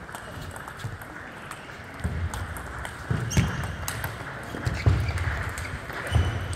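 Table tennis rally: the ball clicks off the bats and the table in quick, uneven succession, mixed with dull thuds, the loudest about five seconds in. The thuds fit the players' footwork on the court floor.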